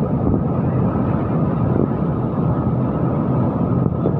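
A loud, steady mechanical drone that does not change.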